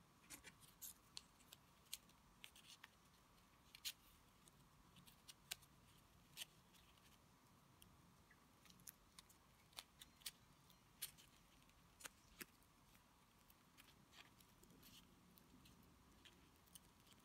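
Faint, irregular small clicks and rustles of fingers handling a wired gumpaste petal and wrapping floral tape around its wire stem, over a faint steady hum.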